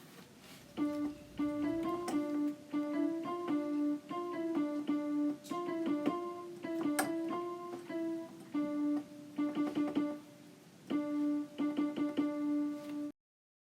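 Music: a melody of short, separate notes, with a few sharp clicks among them, that stops suddenly near the end.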